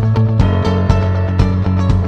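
Background music with a steady beat; the chord changes about half a second in.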